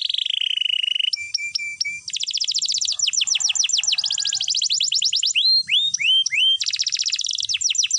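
Domestic canary singing a long unbroken song of fast rolling trills, changing every second or so into held whistled notes and runs of quick down-sweeping notes.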